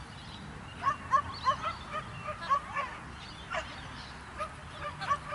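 Dog yipping and barking in short, sharp, high calls: a quick run of them about a second in, then a few more spaced out. This is typical of an excited dog working an agility course.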